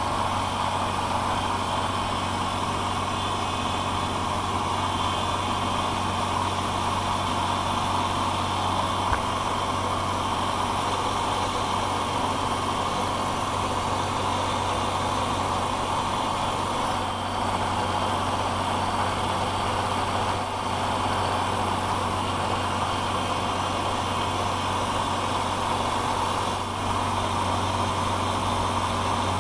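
Manual milling machine running steadily with a low motor hum while its end mill roughs out a brass workpiece, giving a constant cutting noise.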